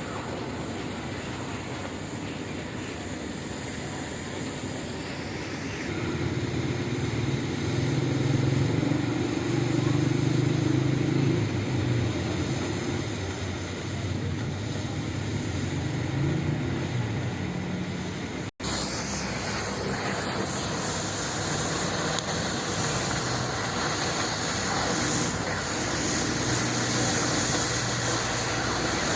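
Automatic steel-plate cutter's torch hissing steadily over a low machine hum that swells for a stretch in the first half. The sound breaks off abruptly about two-thirds through, then resumes as a brighter, hissier noise.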